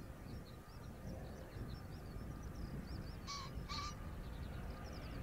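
A crow cawing twice, half a second apart, about three seconds in. Fast, thin twittering of small birds and a low, steady rumble of wind on the microphone run underneath.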